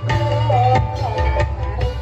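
Live gamelan music for a kuda lumping horse dance. Hand-drum strokes fall in a quick rhythm over ringing gong-chime and metallophone notes, with a melody line that bends in pitch above them.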